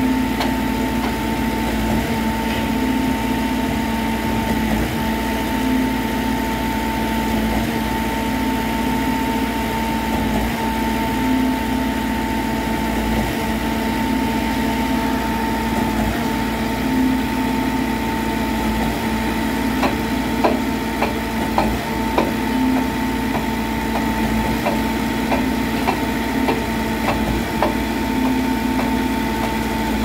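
Trailer-mounted concrete pump running steadily while pumping concrete through the delivery hose. Its steady whine and hum dip briefly about every three seconds, and a few sharp knocks come in the second half.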